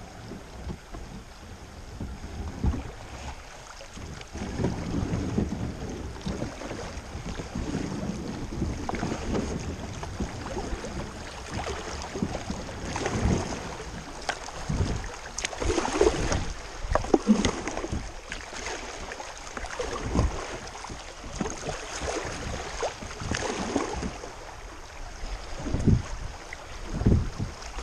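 Kayak paddle dipping and splashing, with water moving along the plastic hull and wind rumbling on the microphone. The splashes come irregularly, a few seconds apart.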